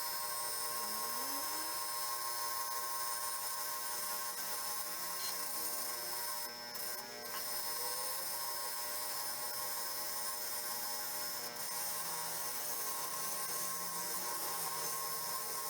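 Power wire brush running steadily, scrubbing rust off a steel pry bar.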